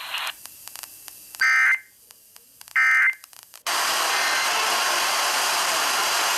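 Two short warbling data-tone bursts of an Emergency Alert System (SAME) end-of-message signal from a NOAA Weather Radio broadcast, about a second and a half apart, marking the end of the warning. About a second after the second burst, a loud steady static hiss from the radio comes in.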